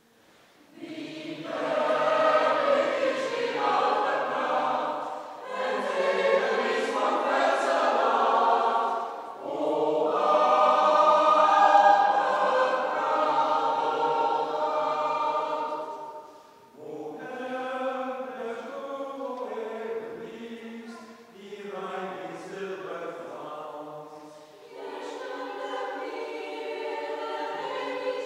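Mixed choir of women's and men's voices singing together in phrases a few seconds long, with short pauses between them; the phrases in the second half are softer.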